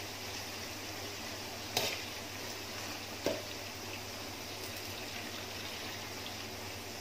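Shredded crab sticks and curry leaves deep-frying in a wok of hot oil: a steady bubbling sizzle. Two short sharp knocks come about two and three seconds in.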